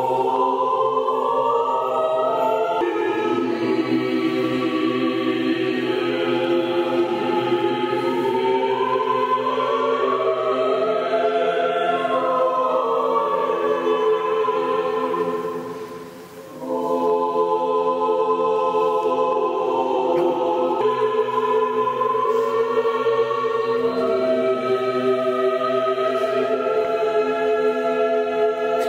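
Church choir singing an Orthodox liturgical hymn unaccompanied, in long held chords, with a brief break about halfway through before the singing resumes.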